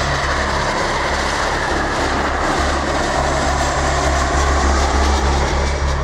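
Boeing 737-800's CFM56-7B turbofan engines as the jet flies low overhead on landing approach: a steady, loud engine roar.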